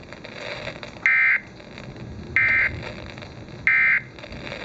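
Emergency Alert System end-of-message data signal received over broadcast radio: three short, loud digital data bursts, evenly spaced about a second and a quarter apart, with faint static between them. The bursts mark the end of the alert message.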